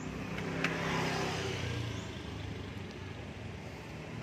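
A vehicle engine running in the background, swelling about a second in and then easing off, with a sharp click just before the swell.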